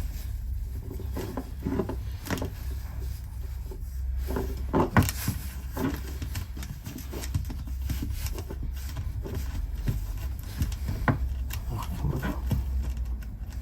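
Scattered small clicks and rubbing as wires and small connector parts are handled and compared, with a sharper click about five seconds in, over a steady low hum.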